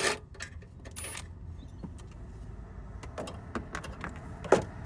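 Scattered metallic clicks and clinks of hand tools and parts being handled on the engine while the turbo heat shield is taken off, over a steady low hum; the sharpest click comes near the end.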